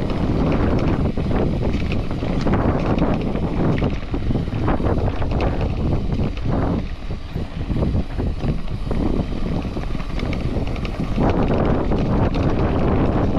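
Wind buffeting an action-camera microphone during a mountain bike descent on a loose dirt trail, with tyres crunching over gravel and the bike rattling over bumps. It eases about halfway through and picks up again near the end.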